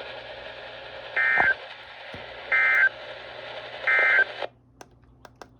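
Three short Emergency Alert System end-of-message data bursts, the two-tone digital warble that closes a warning, each about a third of a second long and about a second and a half apart, over steady radio hiss. About four and a half seconds in, the hiss cuts off suddenly.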